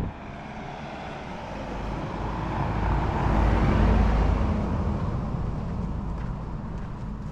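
A car passing along the street, its engine and tyre noise swelling to a peak about three to four seconds in and then fading.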